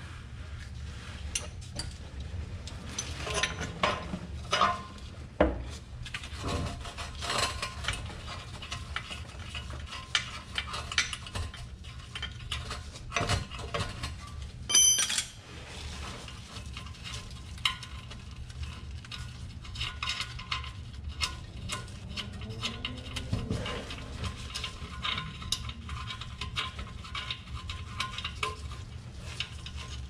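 Wrenches clinking and scraping on the exhaust and underbody hardware of a BMW E21 as the muffler's fasteners are worked loose, in a busy run of small metal clicks. A louder metal clank rings out about halfway through.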